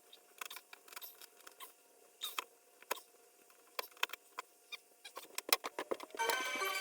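Old carpet being cut by hand with a blade: a series of short, irregular scratching and snipping strokes with small clicks. Background music comes in near the end.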